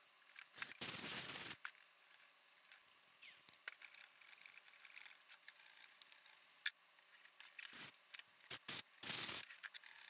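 Soft-bristle brush scrubbing fabric seat upholstery in a few short bursts, the longest about a second in and a cluster near the end, with faint handling clicks and scrapes between.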